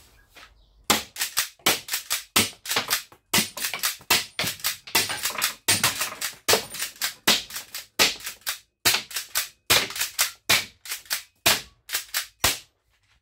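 Rapid series of air gun shots, about two to three a second, many followed closely by a second sharp crack or ping as the shot strikes the metal targets; the shooting stops abruptly near the end.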